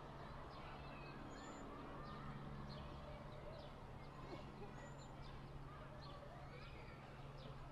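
Small birds chirping and twittering outdoors in many short, quick calls, heard faintly over a steady low hum and background noise.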